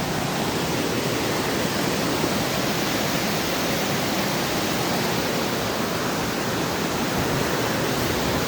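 Steady, loud rushing of a waterfall, an even roar of falling water with no break.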